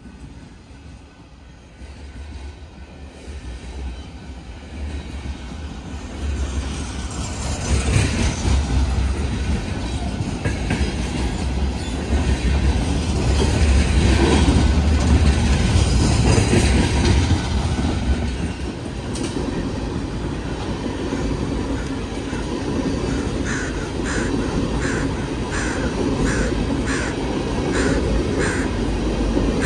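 Empty coal train of steel hopper cars rolling past at track speed: a rumble and rattle that builds over the first several seconds and is loudest in the middle. In the last few seconds a crow caws repeatedly, about one caw a second, over the passing cars.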